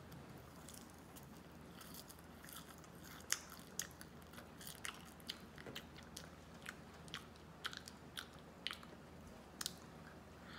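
A child biting and chewing soft twisted marshmallows from a skewer: faint, irregular wet mouth clicks, about two a second, with one louder click a little over three seconds in.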